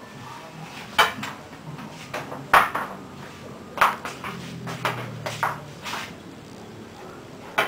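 About five sharp clinks and knocks, a second or more apart, from tableware being handled on a table: a metal tin and a cup.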